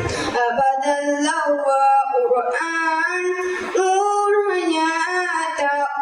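A child singing a devotional song praising the Quran, with long held notes that bend and turn in melody.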